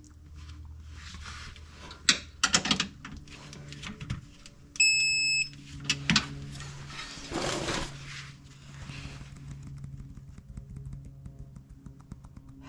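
Clicks, knocks and clatter of hand tools being used on car suspension fasteners, with a single short electronic beep about five seconds in, over a steady low hum.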